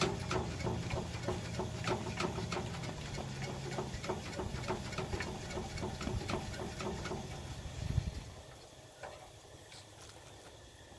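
Coleman 425 camp stove fuel tank being hand-pumped, the plunger clicking in quick strokes at about three a second to pressurize the naphtha tank. The pumping stops about eight seconds in with a thump.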